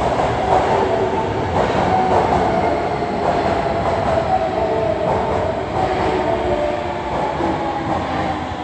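Subway train running through the station: a loud, steady rumble with a whining tone over it.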